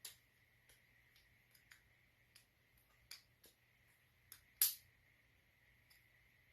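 Scattered light clicks and taps from a copper-handled balisong (butterfly knife) being handled, the loudest about four and a half seconds in, over a faint steady hum.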